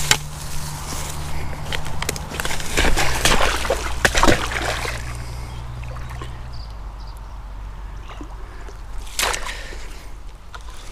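Water sloshing and splashing as a hooked common carp thrashes at the surface close to the bank, in a run of splashes strongest in the first half, with one more near the end.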